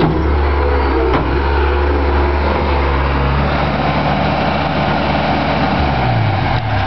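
Case skid steer's diesel engine running steadily, with a single clank about a second in and the engine note shifting near the end.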